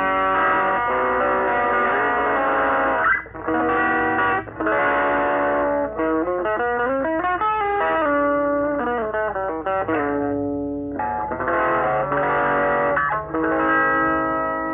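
Yamaha SG 300 electric guitar, fitted with a Bill Lawrence L90 bridge pickup, played through an amplifier. It starts with strummed chords, moves to a run of single notes about halfway in, and returns to chords near the end.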